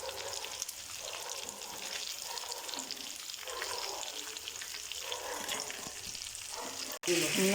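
Chicken pieces deep-frying in hot oil in an iron cheenachatti (Kerala wok), a steady sizzle with fine crackling. The sound cuts out for an instant near the end.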